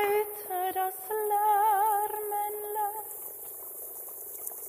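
A woman singing slow, long-held notes with a clear vibrato, a single voice; the singing stops about three seconds in.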